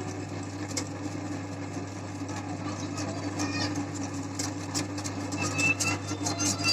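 Electric meat grinder running steadily with a low motor hum, crackling throughout as it grinds brittle sticks.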